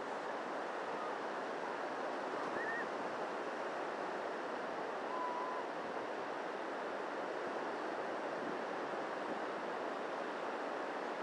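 Steady wash of surf breaking along a sandy beach. Two faint brief chirps come through it, one a few seconds in and one about halfway.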